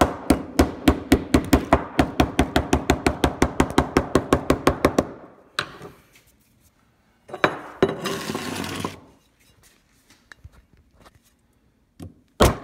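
Rapid hammer blows on the plastic back of a Samsung Galaxy S III mini lying on a concrete floor, about seven sharp knocks a second for some five seconds. A second and a half of scraping follows, and one hard blow near the end knocks the case off.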